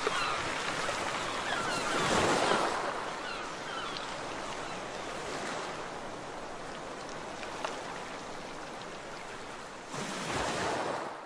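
Waves washing on a beach, with two louder surges of surf, about two seconds in and near the end. A few short bird chirps sound faintly at the very start.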